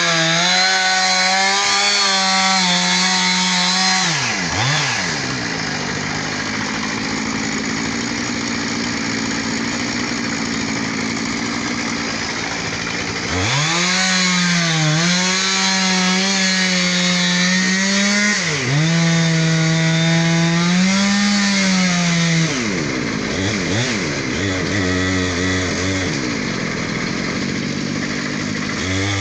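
Chainsaw running at full throttle, cutting into a palm trunk. The engine note repeatedly sags and wavers as the bar bores into the trunk, then picks back up to a high steady pitch.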